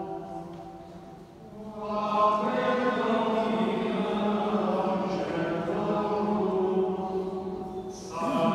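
Voices singing a liturgical chant. The singing fades to a lull about a second in, swells back at about two seconds and holds steady, then breaks briefly near the end before resuming.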